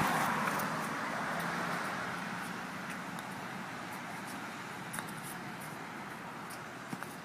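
A passing vehicle's road noise, fading steadily as it moves away. A couple of faint clicks are heard late on.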